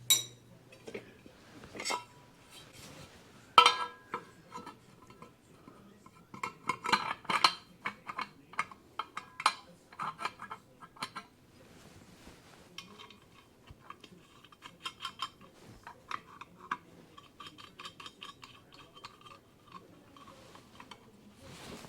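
Metal tools and parts clinking and tapping as they are handled, with one sharper ringing strike about three and a half seconds in and a stretch of lighter, quicker clinking in the second half.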